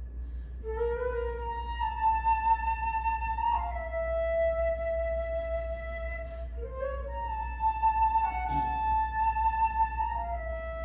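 Solo flute playing long held notes that slide into one another, with a sharp breathy accent on one note near the end. A steady low hum runs underneath.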